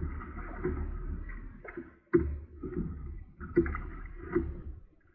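Water splashing and sloshing against a kayak, with about four sharp knocks on the hull through the middle and later part, over a low steady rumble.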